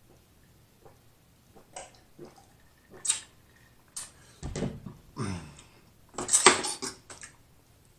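A glass mug of iced drink being handled and set down on the table: sharp clinks of ice and glass, a short vocal exhale after the drink about halfway through, then a louder clatter of dishes near the end.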